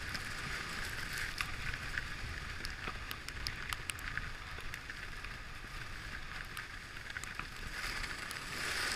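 Fischer skis hissing and scraping over groomed piste snow at speed, with wind rushing over the camera's microphone, scattered light ticks, and a louder scraping swell near the end.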